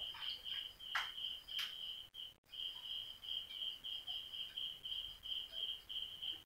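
A cricket chirping in a steady pulsing trill of about three chirps a second. In the first two seconds there are a few short swishes as a duster wipes across a whiteboard.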